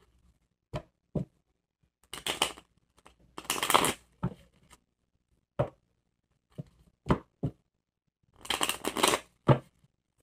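A deck of tarot cards being shuffled by hand: three bursts of riffling card noise, about two seconds in, around four seconds and near nine seconds, with short knocks of the cards in between.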